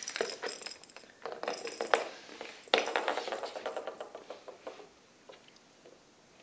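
Plastic baby rattle ball rolling across a wooden floor, its loose inner balls rattling in a clatter of small clicks with a couple of sharper knocks, dying away after about five seconds.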